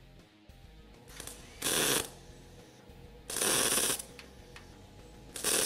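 Eastwood MIG welder striking three short spot welds on sheet steel, each arc burst lasting about half a second, roughly evenly spaced. The wire speed is set too high, which leaves proud, domed-up spot welds.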